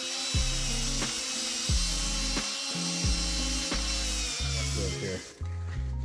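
A drill spins a foam polishing pad loaded with swirl remover against nickel-plated metal: a steady motor whine with a hiss of the pad on the metal. It winds down and stops about five seconds in. Background music with a steady beat plays underneath.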